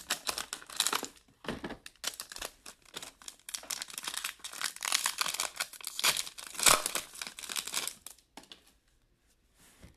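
Foil wrapper of a hockey trading-card pack crinkling and tearing as it is ripped open by hand. The crackling stops about eight seconds in.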